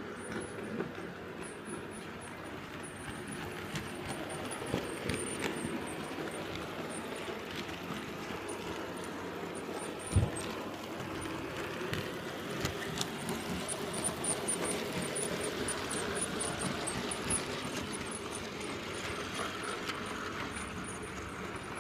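OO gauge model steam locomotive running along the track with a train of open wagons, its small electric motor and wheels giving a steady hum with scattered clicks. One sharp knock about ten seconds in.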